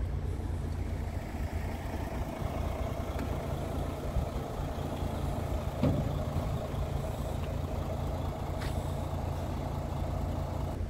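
Scania R450 tractor unit's 13-litre straight-six diesel idling with a steady low rumble, with a brief thump about six seconds in.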